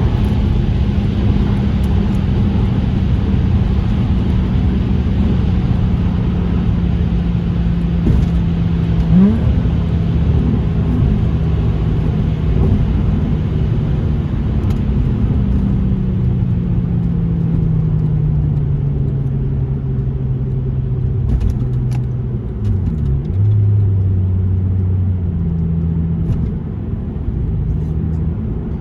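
Subaru Legacy 3.0R's flat-six engine running through an aftermarket catless stainless exhaust manifold, straight dual titanium mid-pipe and dual titanium rear muffler, driving with the automatic gearbox. The engine note holds steady, then falls gradually as the car slows, dips once briefly and settles into a lower steady note near the end.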